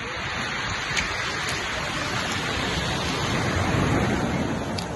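Sea waves washing onto the shore: a steady rushing noise that swells a little around four seconds in.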